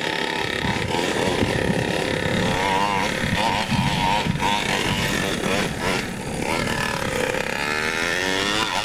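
Gas-powered two-stroke engine of a 1/5-scale Primal RC monster truck revving up and down as the truck drives, its pitch rising and falling repeatedly.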